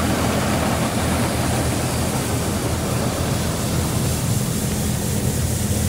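Rice combine harvester running steadily: a constant low engine hum under a broad, even rush of machine noise.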